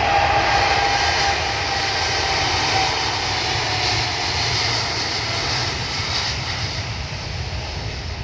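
Boeing 787-8 twin-engine jet at takeoff power on its takeoff roll, a loud steady roar. A high steady whine sounds over the first few seconds and fades, and the roar grows gradually quieter as the jet rolls away.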